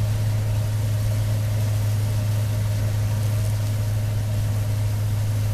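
Case 960 combine running steadily while harvesting corn: a constant low engine hum with a fainter steady higher tone and a wash of machinery noise over it.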